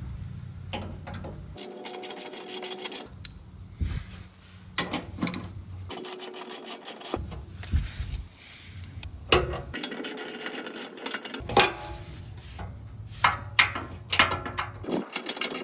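Socket ratchet clicking in quick runs while undoing the front skid plate bolts, with scattered sharp metallic knocks and scrapes.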